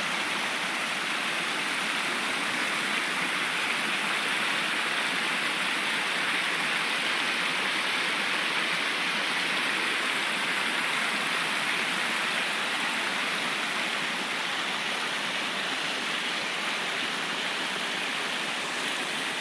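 Small mountain stream splashing and trickling over rocks and fallen branches, a steady rushing of water.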